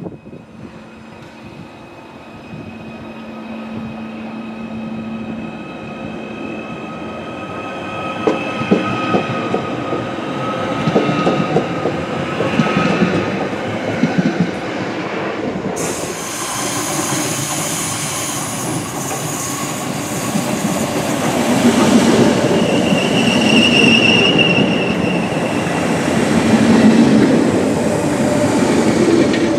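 Merseyrail Class 777 electric train pulling out of the platform. A steady motor whine gives way to wheels clattering over the rail joints, growing louder as it gathers speed past. About halfway through the sound turns abruptly brighter as an older silver Merseyrail Class 507/508 electric unit runs alongside, with high wheel squeal in the later part.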